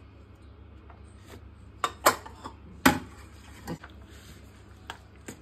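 A spoon clinking and scraping against bowls as pizza sauce is scraped out of a small bowl and a chicken and vegetable filling is stirred: a few sharp clinks, the loudest about two and three seconds in.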